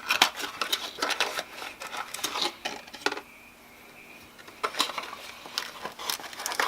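Small piston-kit parts and their packaging being handled: quick runs of light clicks and crinkling, pausing for about a second and a half in the middle.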